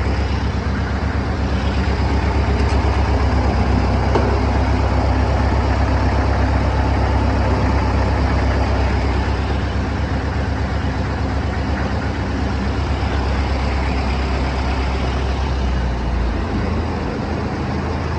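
Case 730 farm tractor engine running steadily as the tractor is driven along.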